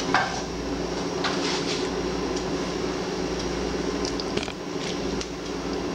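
A spoon stirring elbow macaroni, ground beef and tomato sauce, making soft wet squelches, over a steady hum.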